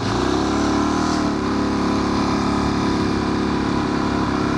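Motorcycle engine running steadily at cruising speed while being ridden.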